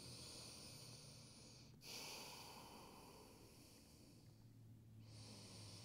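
Faint, slow breathing of a person holding a seated yoga forward fold: long breaths of about two seconds each, then a pause, with another breath starting near the end.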